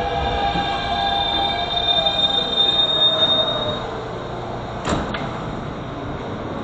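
Subway train wheels squealing against the rails: several steady high-pitched tones over a rumble that fade out about four seconds in. This is followed by a sharp double knock about five seconds in.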